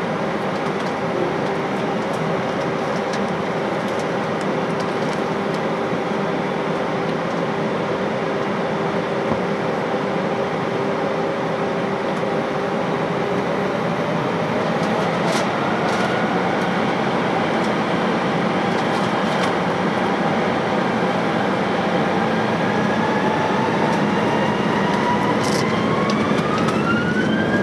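Airbus A321 jet engines heard from inside the passenger cabin, a steady rushing noise with a whine at taxi power. Near the end the whine climbs in pitch and grows a little louder as the engines spool up.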